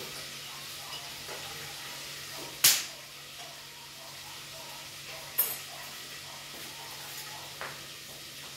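Food sizzling in a pan on the stove, with two sharp clinks of kitchenware, the first the loudest, and a lighter one near the end.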